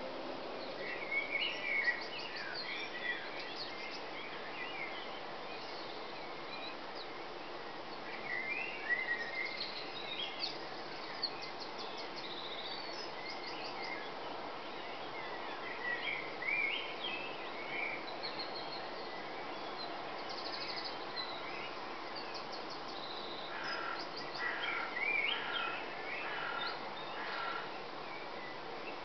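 Dawn chorus: several songbirds singing in scattered phrases, some of them rapid trills, over a steady background noise. The songs come in clusters about a second in, around the middle and near the end.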